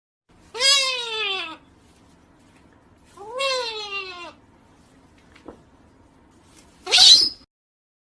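Galah (rose-breasted cockatoo) giving two long, drawn-out screeching calls that rise and then fall in pitch, followed by a short, harsh screech near the end.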